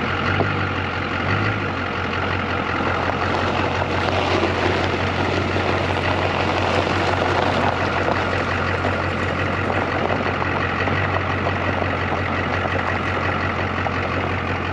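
Stihl 661 chainsaw running steadily in a Granberg Alaska mill, sawing lumber from a log.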